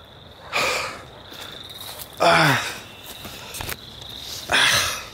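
A man groaning three times after being thrown off his board onto the ground, each groan falling in pitch. A faint, steady high whine runs underneath.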